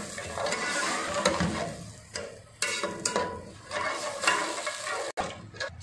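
Metal slotted ladle stirring and scraping around an aluminium pot of vermicelli in water, with irregular knocks against the pot, mixing in sugar that has just gone in.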